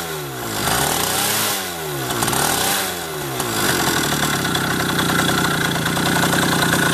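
Single-cylinder two-stroke D-8 moped engine, freshly overhauled, running. It is revved up and back down twice, then settles to a steady run.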